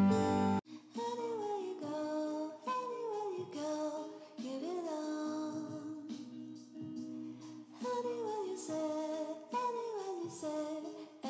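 Gentle background music with a gliding melody in short phrases. It follows a louder intro jingle that cuts off abruptly about half a second in.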